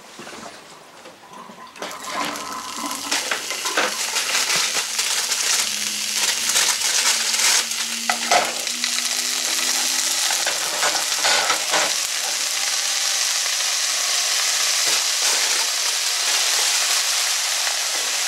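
Two plant-based veggie burger patties frying in a nonstick pan, a steady sizzle with a few small clicks and pops. The sizzle comes in about two seconds in.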